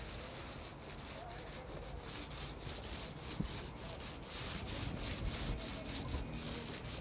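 An open-cell roller on a pole being pushed back and forth through Tuff Coat rubber-crumb non-skid coating on a boat's engine cover. It makes a gritty, hissing scrape that swells and fades with each stroke.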